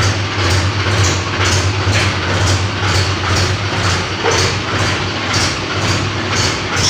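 Mahindra 265 DI tractor's three-cylinder diesel engine running steadily at low revs, with a regular clatter about twice a second over the engine's low hum.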